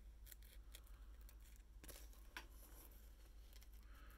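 Small scissors snipping through a doubled sheet of foam-backed metallic flash material: a string of faint, irregular short clicks, the sharpest about two seconds in. A steady low hum lies underneath.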